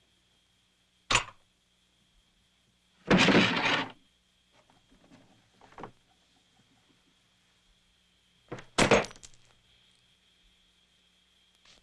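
A few separate knocks and crashes with quiet between them: a sharp hit about a second in, a longer crash around three seconds, some faint small rattles and a short knock, then a double hit near the end.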